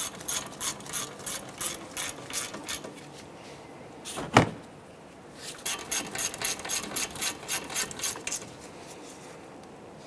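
Hand ratchet wrench clicking in two quick runs as the brake caliper bracket bolts are snugged down, with a single sharper knock about four seconds in.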